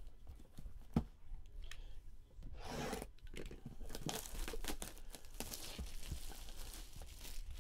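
Plastic shrink-wrap being torn, rubbed and crinkled off a cardboard box, in irregular rustling spurts. A single knock about a second in.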